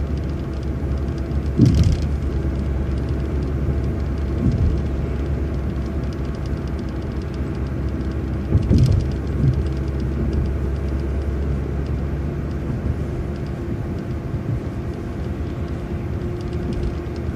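City transit bus driving between stops: a steady engine and road rumble with a faint steady whine. Two short rattling knocks come through, about two seconds in and again about nine seconds in.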